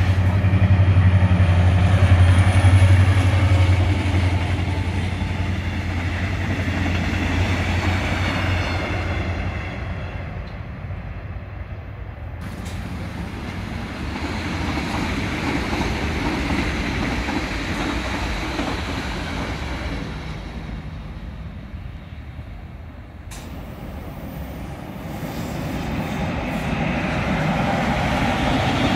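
Trains passing on an electrified main line, in three clips cut together. First a locomotive approaches with a strong steady low hum and high whining tones above it. About twelve seconds in, an ITX-Saemaeul electric trainset rolls by with a rushing rumble. Near the end, an electric locomotive hauling cement tank wagons approaches and grows louder.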